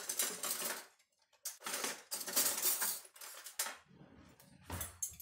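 Handling noise: four bursts of rattling, clattering sound, each up to about a second and a half long, with a low knock near the end.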